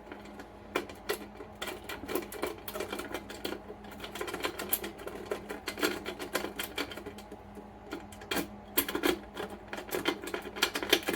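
Lock picks worked in the keyway of a small book-safe lock: rapid, irregular metallic clicking and scraping as the pins are probed and raked.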